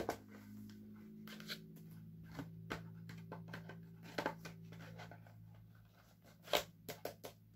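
Plastic DVD box set being handled: scattered faint clicks and rustles as the case and disc trays are turned over, the loudest a little past six seconds in, over a low steady hum.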